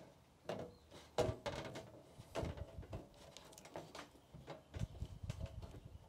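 Red-handled offset aviation snips cutting a curve in thin sheet metal: a faint, irregular string of short crunching clicks, one for each bite of the blades.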